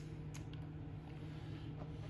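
Steady low hum with a couple of faint clicks from a screwdriver being handled at the engine's plastic side cover.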